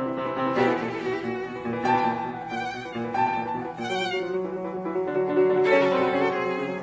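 Instrumental background music: bowed strings playing held, wavering notes over piano.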